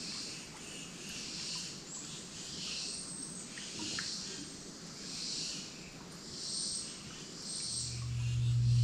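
Insects calling in the woods in soft high-pitched pulses, about one a second. Near the end a low steady hum comes in and swells quickly.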